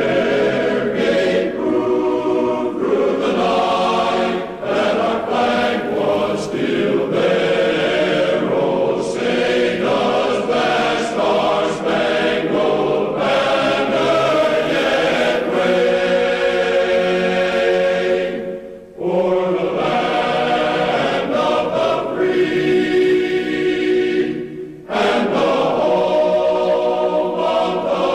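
Choral music: a choir singing sustained chords, with two brief dips, about two-thirds of the way through and a few seconds before the end.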